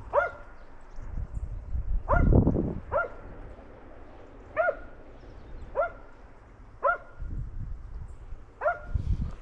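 Hunting dog barking in the brush: seven short, sharp barks spaced irregularly, about one to two seconds apart.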